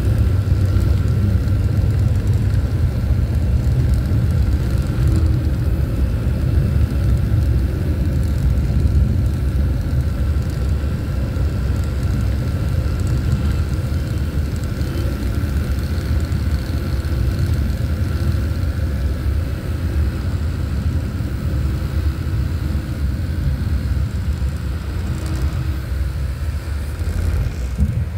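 Maruti Suzuki Wagon R driving, heard from inside the cabin: a steady low rumble of engine and tyre noise on the road.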